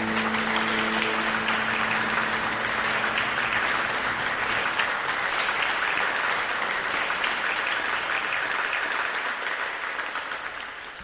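Audience applauding at the end of a song, with the string band's final chord ringing out under the first second or so. The applause fades away near the end.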